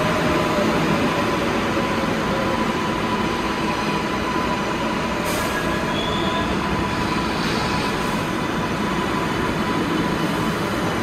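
R188 subway train pulling into a station and slowing to a stop, with a steady rumble of wheels on rail and a thin steady whine. A couple of brief clicks come about five and eight seconds in.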